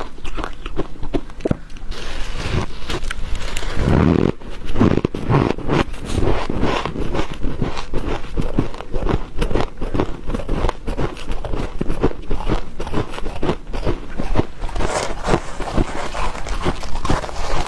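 Close-miked chewing of dry freezer frost: dense, squeaky crunching with a heavier burst about four seconds in. Near the end, gloved hands squeeze and scrape frost in the bowl.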